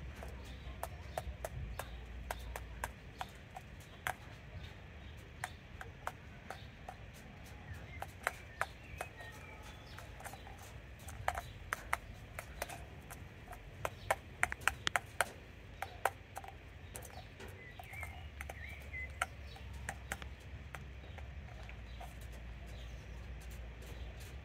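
A crow's beak pecking and tapping at a torn plastic ping-pong ball on cobblestones: irregular sharp clicks and taps, coming in quick clusters around the middle, over a low steady background hum.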